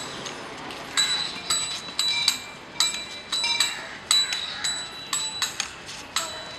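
Metal percussion struck repeatedly in an uneven beat, about two to three strikes a second, each a bright clang that rings briefly.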